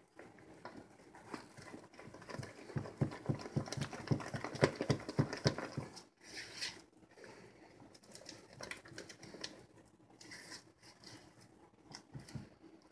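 Silicone spatula stirring thick cocoa cake batter and flour in a mixing bowl: quick, rapid scraping and slapping strokes, loudest and fastest a couple of seconds in, then slower, softer stirring.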